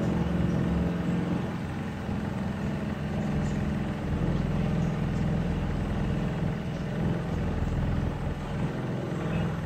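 Motor of a small wooden canal boat running steadily as it moves along the canal: an even low hum.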